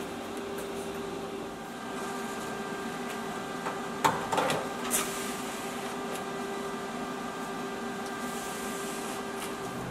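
A steady mechanical hum holding several fixed tones. Around four to five seconds in there are a few sharp clicks and a short scrape as the thin sheet-metal sill is worked by hand.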